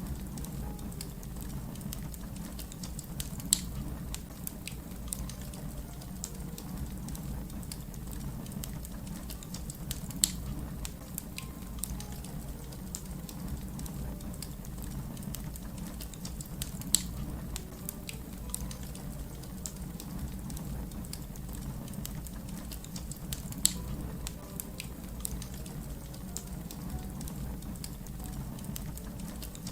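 Wood fire crackling, a steady low rumble under a constant patter of small crackles, with four louder pops spaced several seconds apart.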